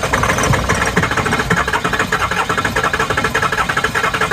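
Ford 6.0 Powerstroke V8 diesel being cranked over by its starter, turning steadily with a rapid, even rhythm of compression strokes but not catching. It has been dosed with starting fluid and almost fires, but it is still a no-start.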